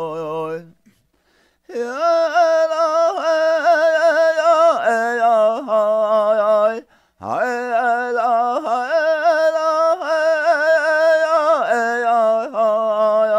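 A solo man singing a Lakota song unaccompanied: long held notes with a wide vibrato that swoop down at the ends of phrases, broken by two short pauses, about a second in and midway.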